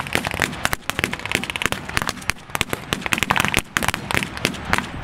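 Sustained, irregular small-arms gunfire from several rifles firing blanks, sharp cracks coming several times a second and sometimes overlapping.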